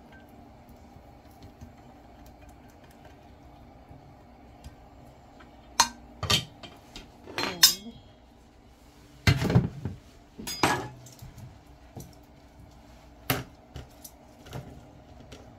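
Kitchen clatter: a glass baking dish, a knife and utensils clink and knock against the counter. The knocks come in a loose series from about six seconds in, the heaviest thud a little past nine seconds.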